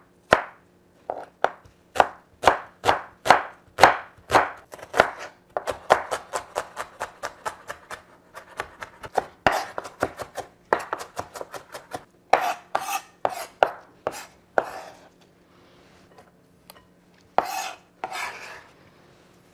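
Chef's knife chopping an onion on a wooden cutting board: steady strokes about two to three a second, then quicker, denser chopping as the onion is minced fine. The chopping stops for a couple of seconds near the end, then a few last strikes follow.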